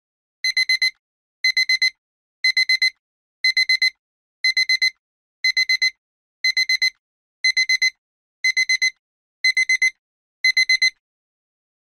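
Electronic alarm beeping: a high, pure beep repeated in quick clusters of four, one cluster a second, eleven times, signalling that the countdown timer has run out.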